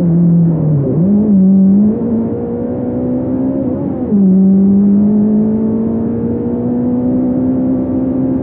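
Fiat Punto race car's engine heard from inside the car, accelerating hard. Its pitch dips and jumps back up about a second in, drops at a gear change about four seconds in, then climbs slowly and steadily through the rest.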